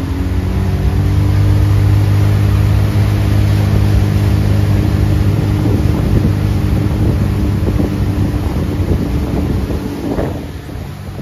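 Sea-Doo Switch's 230 hp engine and jet drive running under throttle at a steady pitch, held at a set speed by ski mode, over the rush of water in the wake and wind on the microphone. The level drops somewhat near the end.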